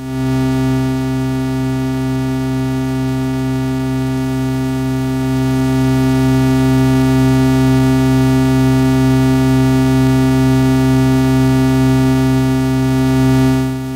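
Eurorack synthesizer audio signal patched through the Behringer Abacus and Make Noise Maths inputs: a steady, low, buzzing drone rich in overtones, at a constant pitch. It grows slightly louder partway through and cuts off abruptly near the end.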